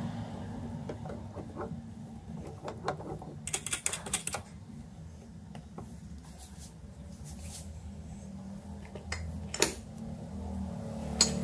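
Light, irregular metallic clicks and taps of small metal parts being handled, a cluster of them about three and a half seconds in and sharper taps about nine and a half seconds in and near the end, over a steady low hum.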